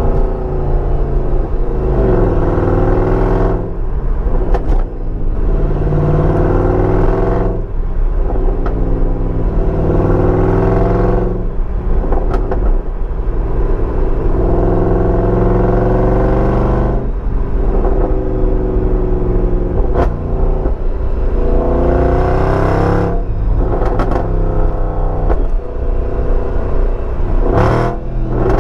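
Mercedes C63 AMG's 6.2-litre V8, with its secondary cats and resonators deleted, heard through a microphone in the trunk while the car accelerates. The revs climb and then drop sharply several times over, with a few short sharp cracks between the pulls.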